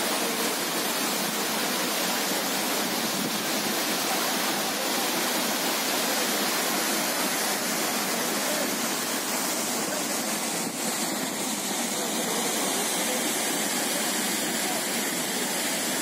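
Large waterfall pouring onto rock and into its plunge pool: a steady, even rush of falling water.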